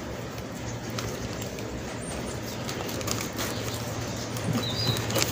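Hands pressing and firming loose potting soil in a plastic seedling bag: soft rustling with a few small clicks, over a low continuous hum. A brief high bird chirp comes near the end.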